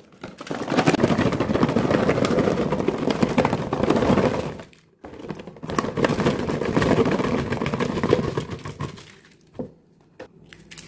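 Plastic packaging of jelly sweets crinkling and crackling as it is handled and opened. It comes in two long bouts with a brief break about five seconds in, then a few scattered crackles near the end.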